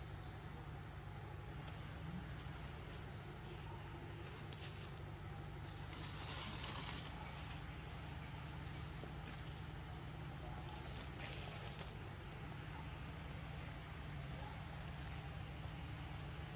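Insects droning steadily outdoors in two high, even tones, over a low steady hum. About six seconds in there is a brief louder hiss.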